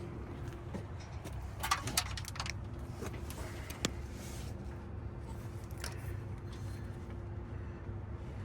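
Small objects being handled: a cluster of short clinks and a jangle about two seconds in, single clicks later on, over a steady low hum.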